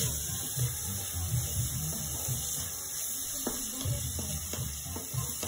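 A spatula stirring chopped tomatoes and onions in a hot kadai: irregular scraping and shuffling, with a few sharp clicks of the spatula against the pan in the second half, over a steady hiss of frying.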